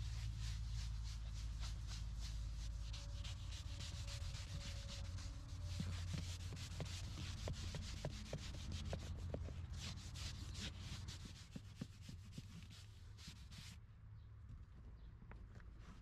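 A foam scrubber pad rubbing back and forth on leather car-seat upholstery in quick scratchy strokes, working in leather cleaner. The strokes thin out and get quieter near the end.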